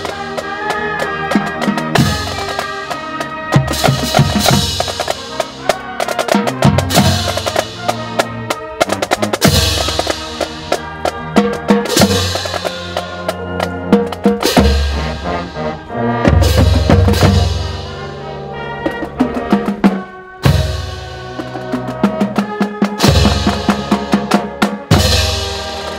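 Marching band playing: brass and sousaphones holding pitched notes over a drumline of snare drums, bass drums and crash cymbals.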